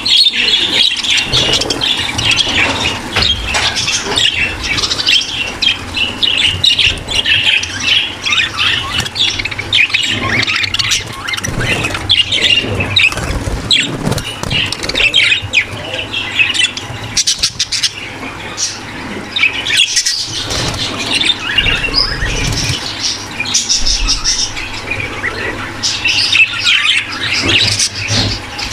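A breeding flock of budgerigars chattering and warbling without pause, many birds at once, full of short overlapping chirps and squawks: the courtship chatter of budgies in breeding condition.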